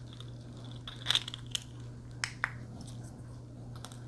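Hands handling a small plastic Bluetooth camera clicker and its clear plastic packaging: a few short crinkles and clicks, the loudest about a second in, over a low steady hum.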